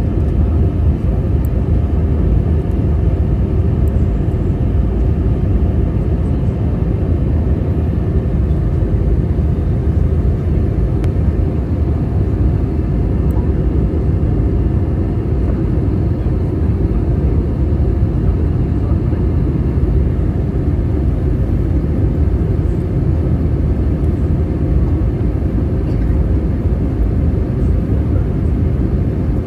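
Steady cabin noise of an Airbus A320-232 in descent, heard from inside the cabin: a low, even rumble of airflow and its IAE V2500 engines, with faint steady hums above it.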